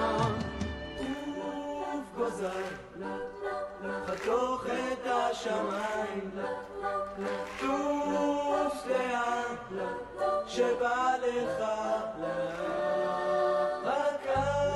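A choir of voices singing over little or no bass accompaniment, the low bass line coming back in near the end.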